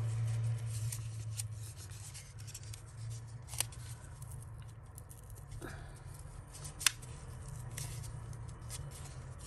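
Fingers working clip-on earrings loose from a piece of cardboard: scraping, rubbing and small clicks of metal clips against card, with two sharper snaps, the louder one near the end.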